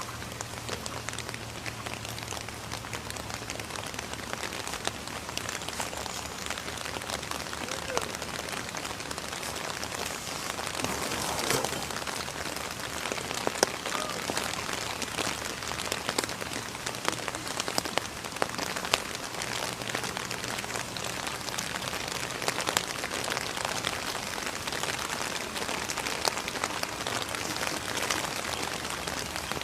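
Steady rain falling, with a dense scatter of small sharp drop hits.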